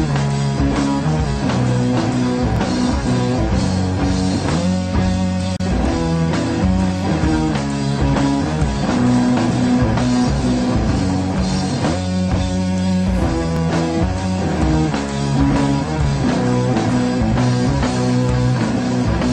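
Rock music with electric guitar and drums at a steady beat.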